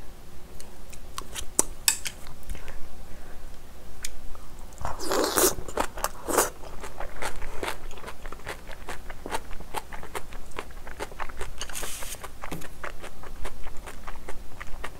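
Close-miked chewing of cabbage kimchi with curry rice: crisp crunches and wet mouth clicks, loudest in two clusters about five seconds in and again near twelve seconds.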